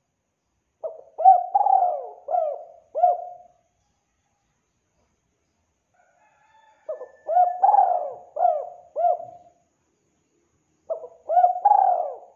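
Spotted dove cooing: three phrases of about five coos each, a few seconds apart, the last cut off at the end.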